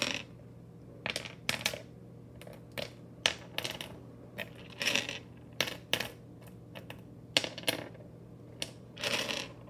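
Glass mancala stones clicking against one another and clattering into the pits of a wooden board as they are set out four to a pit, in short irregular clusters of sharp clicks about every second.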